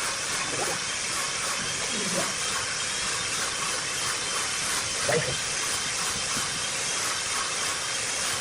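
A steady, even hiss, with faint voices now and then.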